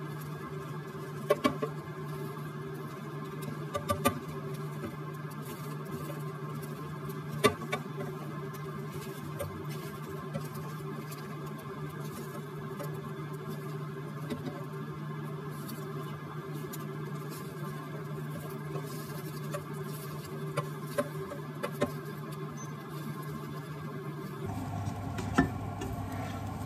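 Slotted spatula cutting and scraping egg in a frying pan: light scratching with sharp clicks a few seconds apart where it knocks the pan, over a steady low hum. Near the end the scraping gets busier as the pieces are stirred about.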